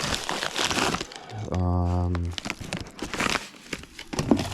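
Plastic packaging crinkling and rustling as kit parts are unpacked, with a short held hum of voice about one and a half seconds in.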